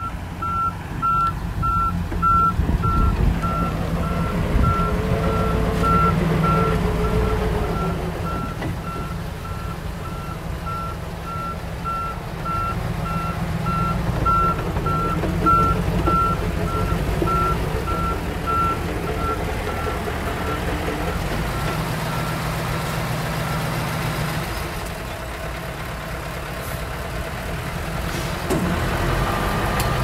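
A heavy machine's reversing alarm beeping in an even run of short beeps at one pitch, which fades out about two-thirds of the way through. Underneath, a heavy diesel engine runs steadily.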